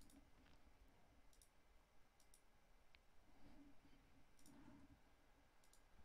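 Near silence broken by a handful of faint computer mouse clicks, most in quick press-and-release pairs.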